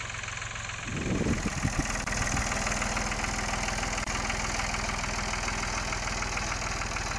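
Tractor engine running steadily as it pulls a back blade to drag dirt over potato trenches, with a few clunks and a rise in level about a second in.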